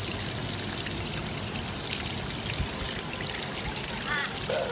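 Steady trickle and pour of running water in a gold and gemstone panning trough.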